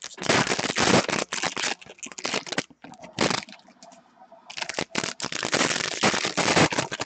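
Foil trading-card pack wrapper crackling as it is torn open and handled, with a quieter pause just past the middle.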